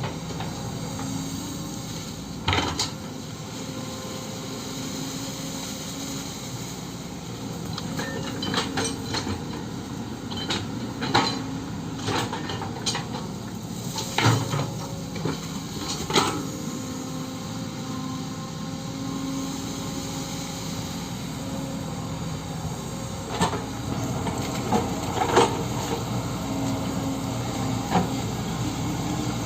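Kobelco SK130 excavator's diesel engine running steadily while it digs a ditch, with repeated sharp metallic clanks and knocks from the bucket and arm.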